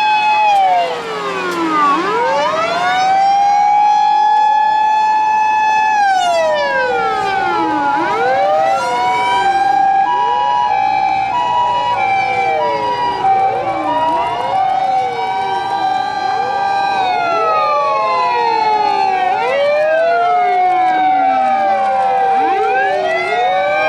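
Several Japanese emergency vehicle sirens, from fire engines on an emergency run, wailing at once, each falling and rising in pitch out of step with the others. A two-tone high-low siren alternates through the middle.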